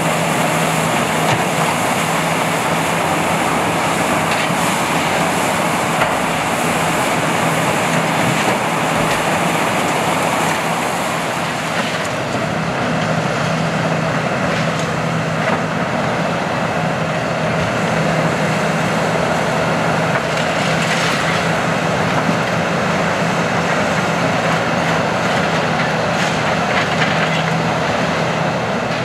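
Kiesel KTC 390 demolition excavator's diesel engine running steadily with a constant low hum, along with occasional knocks and clatter from the machine at work.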